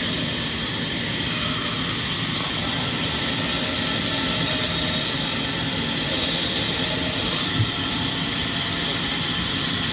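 Sawmill machinery running steadily, a loud even hiss over a low rumble, with a single short thump about three quarters of the way through.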